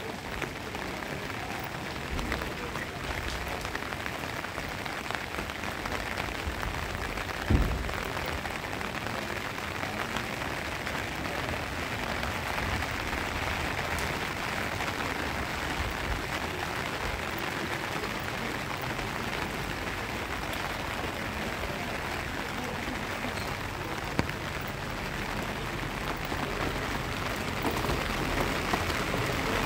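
Steady rain falling on pavement, an even hiss. A single low thump stands out about seven and a half seconds in.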